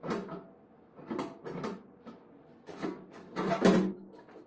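Metal bread pan of a Silvercrest bread maker being worked loose and lifted out of the machine: a handful of short knocks and scrapes of hard parts, the loudest about three and a half seconds in.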